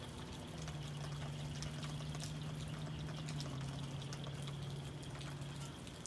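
Rain dripping and pattering close by, with many small scattered ticks over a hiss. Under it a steady low hum steps down in pitch about halfway through and stops near the end.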